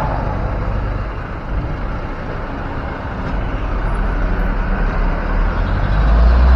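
A bus's engine running on the road, a low rumble with road noise that swells louder near the end as the vehicle comes closer. No telolet horn melody sounds.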